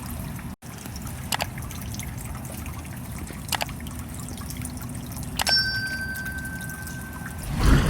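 Rain sound effect: a steady patter of water trickling and dripping, with a few distinct single drips, one of them ringing briefly.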